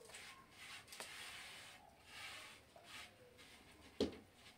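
Soft rubbing and patting of floured bread dough being stretched and shaped by hand, with one sharp thump about four seconds in.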